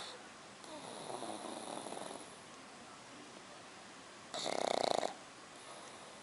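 Snoring in a slow breathing rhythm: a softer breath about a second in, then a loud snore near the end, about one breath cycle every five seconds.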